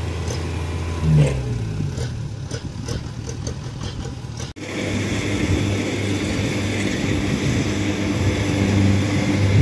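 Diesel engine of a Kubota DC-70 combine harvester running, rising briefly and loudly about a second in, then settling to a lower pitch. After a sudden cut partway through, the steady running of combine harvester engines working in the field.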